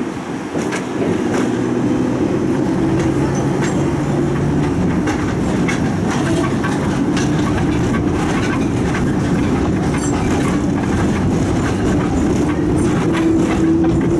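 Tram running along its track, heard from on board: a steady rolling rumble and hum, with irregular clacks of the wheels over rail joints.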